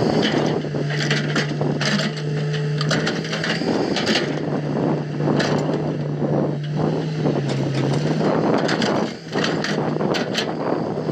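Hitachi hydraulic excavator working: a steady engine hum that drops slightly in pitch and fades out about eight seconds in, under repeated knocks and clatter.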